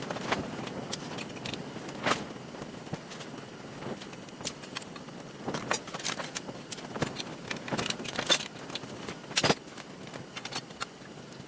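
Scattered light clicks and knocks of metal and plastic parts being handled while a garage door opener is taken apart, irregular and a few seconds apart, over a steady background hiss.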